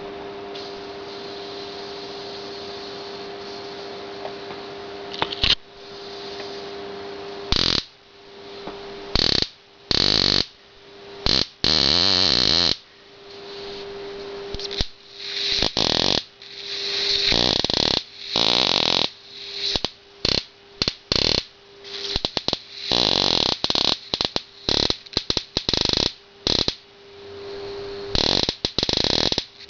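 Homemade salt-water Leyden jar being charged from a high-voltage supply and discharging in arcs. A steady electrical hum runs for the first few seconds, then loud, irregular cracking arc bursts follow one after another, each lasting from a split second to about a second, with the hum between them.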